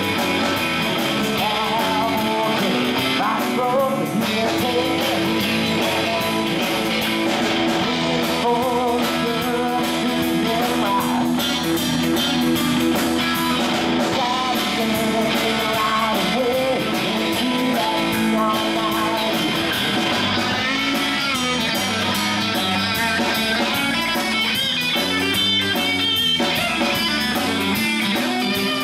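Live rock band playing, with electric guitar to the fore over bass guitar and a drum kit.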